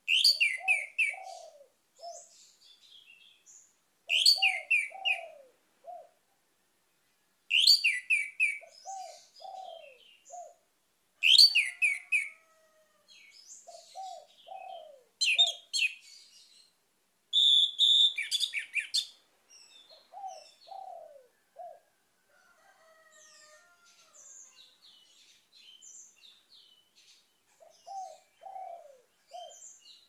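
Orange-headed thrush singing: loud phrases of quick, rich whistled notes about every three to four seconds, each with a few lower downward-slurred notes alongside. In the last third the phrases give way to softer scattered notes, with one more short phrase near the end.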